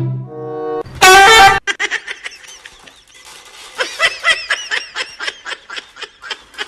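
A loud, short horn-like blast about a second in, followed by a person's giggling laughter in quick bursts.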